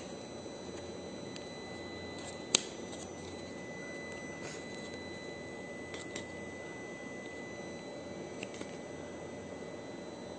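Hands handling a small cardboard accessory box: one sharp click about two and a half seconds in and a few faint ticks later. Under them, a steady faint hiss with a thin high tone.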